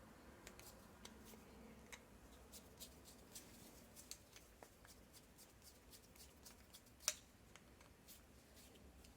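Faint scattered clicks and ticks of small metal parts and a screwdriver being handled while the small carburetor's cover screws are driven in, with one sharper click about seven seconds in.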